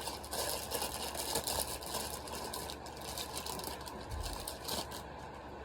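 Packaging being rustled and crinkled by hand while the wristbands are taken out, a dense run of irregular crackles that stops about five seconds in, leaving a low steady hum.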